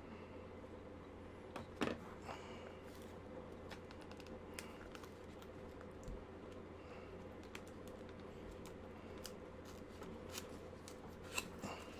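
Faint scattered clicks and light handling noises of a small plastic box of Kailh Speed Copper keyboard switches being opened, with a sharper click about two seconds in and a couple more near the end, over a steady low hum.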